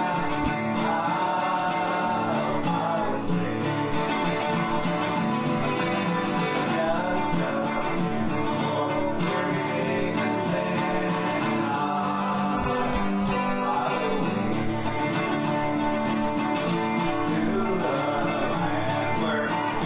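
A country gospel song with acoustic guitar and singing.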